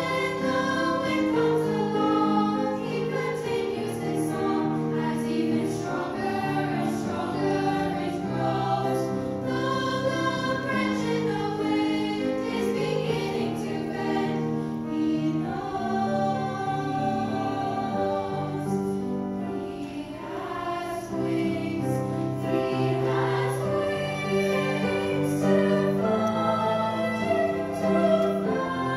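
Children's choir singing together.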